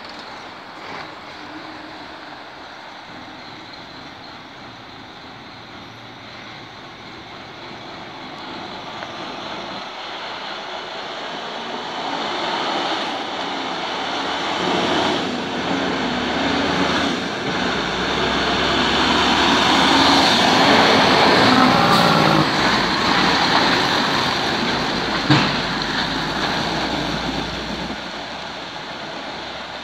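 Tractor-trailer's diesel engine and tyres growing louder as the truck approaches and passes close by, loudest about two-thirds of the way through, then fading. A single sharp bang comes just after the peak.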